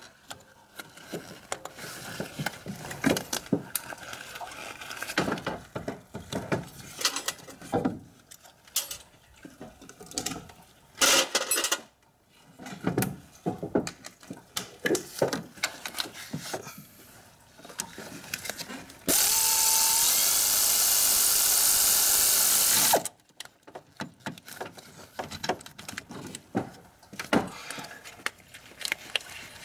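Ratchet and socket on a long extension working the water pump pulley bolts: scattered ratchet clicks and metal clatter. About two-thirds of the way through, a power tool runs steadily for about four seconds, starting with a short rising whine.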